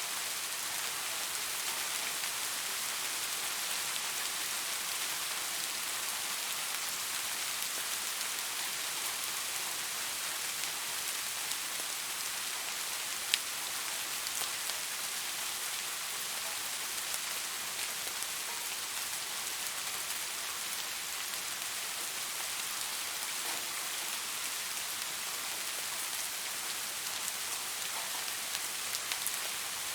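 Steady light rain falling, an even hiss with scattered drop ticks, and one sharp tick about 13 seconds in.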